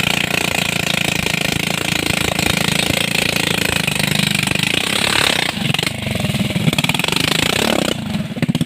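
Small engine, likely a motorcycle's, running steadily with a rapid, even putter, under a constant hiss. The putter dips briefly about five and a half seconds in and again near the end.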